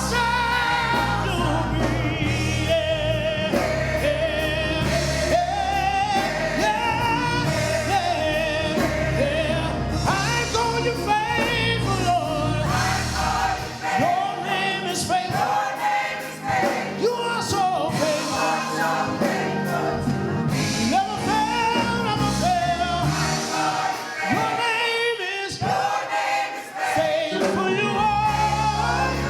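Gospel music with voices singing over a band. The low bass drops out for much of the middle and comes back near the end.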